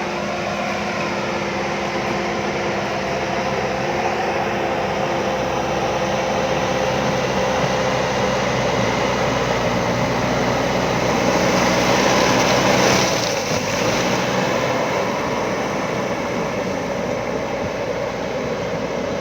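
JCB backhoe loader's diesel engine running under working load, with a steady engine drone that swells about two-thirds of the way through and then drops back sharply.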